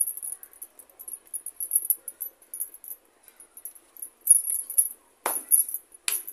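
Glass bangles on both wrists clinking and jingling in quick, uneven bursts as hands pinch off dough and roll it into balls between the palms, with two sharper knocks near the end.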